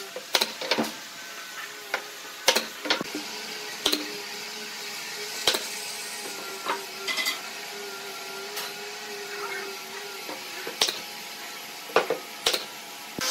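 Pneumatic brad nailer firing nails into pine slats: about a dozen sharp snaps at irregular intervals, some in quick pairs. A faint steady hum runs underneath.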